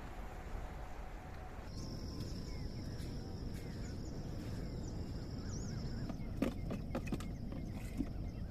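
Outdoor ambience with animal calls: a steady high-pitched tone with short chirps over a low rumble, starting about two seconds in, and a few sharp knocks near the end.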